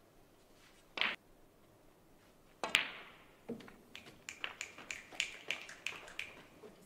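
A short hiss about a second in, then a sharp, loud click of a snooker cue striking the ball. A run of light, evenly spaced claps follows, about three or four a second for nearly three seconds.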